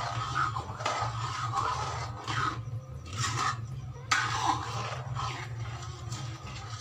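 Long steel ladle stirring thick rice kheer in a heavy metal kadhai, scraping along the pan in repeated strokes, over a steady low hum.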